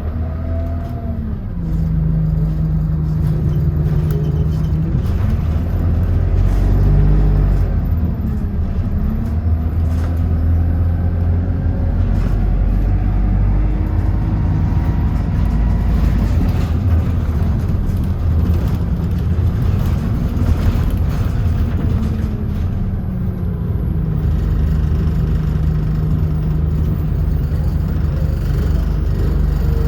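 Bus engine running, heard from on board. It holds a steady hum at first and again near the end; in between its pitch rises and falls several times as it speeds up and eases off.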